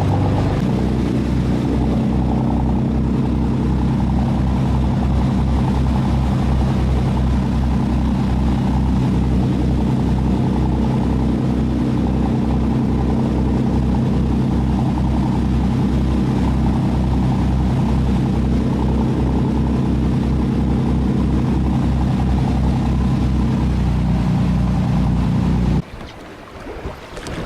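Boat engine running steadily with an even low throb, then cutting off abruptly near the end.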